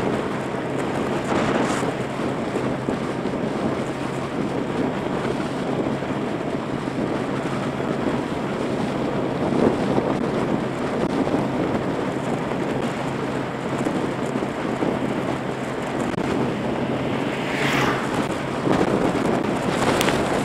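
Wind rushing over the microphone of an action camera on a moving motorbike, with a steady low hum from the bike's engine underneath. A few stronger gusts swell briefly, two of them near the end.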